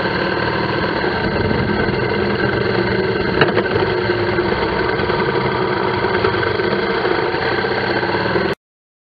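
Motorcycle engine running steadily at low revs while creeping through stopped traffic, with a single brief click about three and a half seconds in; the sound cuts off suddenly near the end.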